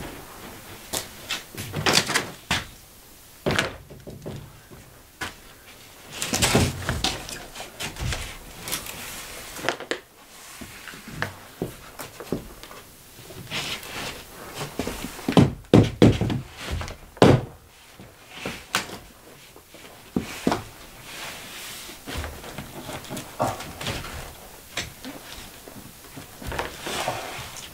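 A large OSB sheet being handled and set against timber wall studs: irregular thuds and knocks of board on wood, with scraping and rubbing between them and a cluster of louder knocks a little past halfway.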